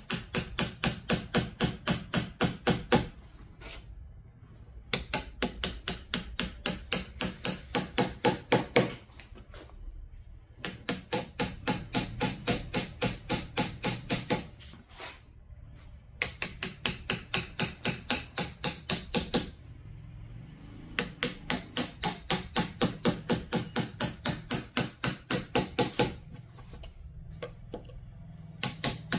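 A mallet tapping a carving knife into a ginkgo-wood signboard: quick, even strikes about four to five a second, in runs of three to five seconds with short pauses between.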